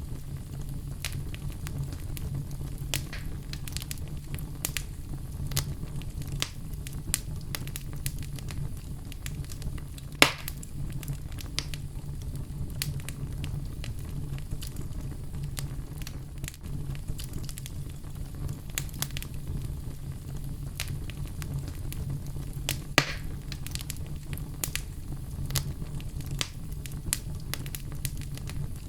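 Oak logs burning in a fireplace: a steady low rumble of flame with constant small crackles and a few sharper pops, the loudest about ten seconds in and another near twenty-three seconds.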